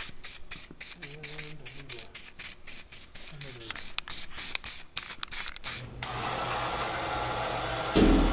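Aerosol spray paint can sprayed in many short quick hisses, about four a second, over a freshly welded patch on a radiator shroud. About six seconds in this gives way to a steady low hum, and near the end there is a single loud thump.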